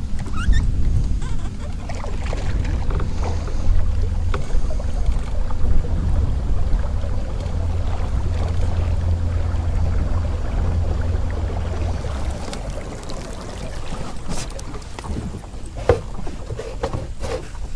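Wind rumbling over the microphone on a small fishing boat out on open water, easing about twelve seconds in. A few sharp knocks and clicks near the end.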